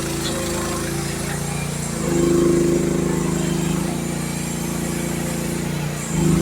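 Youtop YT15 mini excavator's engine running steadily while digging. Its note grows louder and changes about two seconds in, eases back, then rises again briefly near the end.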